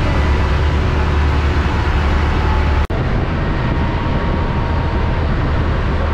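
Engine of a wooden passenger boat running steadily under way, a deep hum under a rush of wind and water from the wake. The sound cuts out for an instant a little before halfway through.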